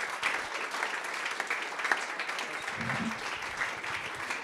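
Audience clapping steadily in applause at the end of a talk.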